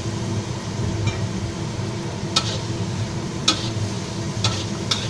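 Metal spatula scraping and knocking against a steel wok as pork and celery are stir-fried, about five sharp clanks roughly a second apart over steady sizzling.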